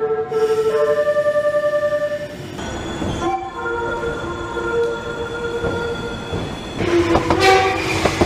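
Japanese train horns in quick succession: first a horn sounding a short run of shifting notes, then from about two and a half seconds in a long multi-tone horn over the rush of a passing train, and near the end a louder horn blast.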